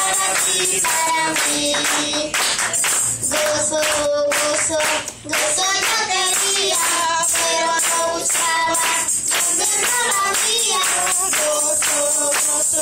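A boy singing a Spanish-language Christian praise song into a handheld microphone, amplified through the church sound system, over steady backing music.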